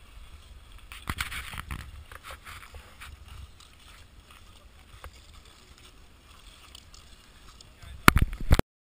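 Wind rumbling on a GoPro camera's small microphone, with scattered voices of people on the ice, busiest about a second in. Near the end come a few loud bursts of wind and handling noise, then the sound cuts off abruptly.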